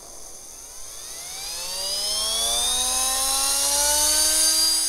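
3D-printed three-phase permanent-magnet electric motor in a small jet-style housing, driven by an electronic speed controller, spooling up. It makes a whine of several tones that climbs in pitch and grows louder, levelling off near the end.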